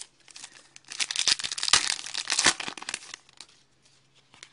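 Trading card pack wrapper being torn open and crinkled in the hands, a dense crackling spell starting about a second in and lasting about two seconds before it goes quiet.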